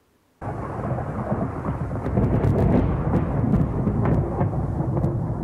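Thunderstorm sound effect: a long rumble of thunder that starts abruptly about half a second in, with a few sharp crackles through it.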